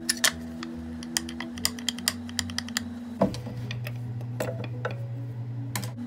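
Light irregular clicks and taps of a small steel latch, with its bolt and nut, being handled and fitted against a plywood panel. Background music with held notes plays underneath.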